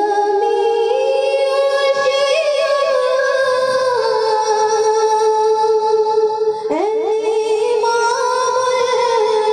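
A woman singing an Urdu naat in long, drawn-out held notes with wavering ornaments, and a quick upward slide in pitch about seven seconds in.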